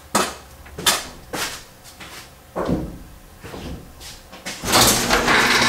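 A few separate knocks and clicks, then about four and a half seconds in a garage door starts opening: a loud steady noise with a low hum underneath.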